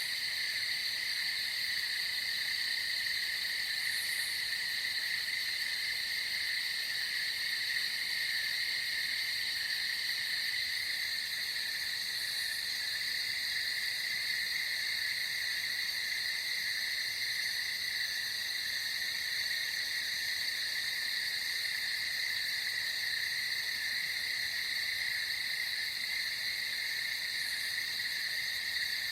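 Sound-effects-library night chorus ambience: a steady, unbroken high-pitched trilling from many small calling animals.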